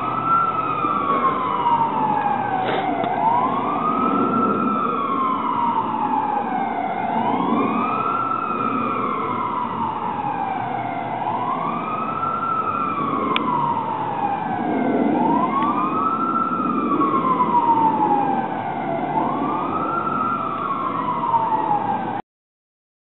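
Fire engine siren wailing, its pitch rising quickly and then falling slowly about every four seconds, with a low rumble underneath. It cuts off suddenly near the end.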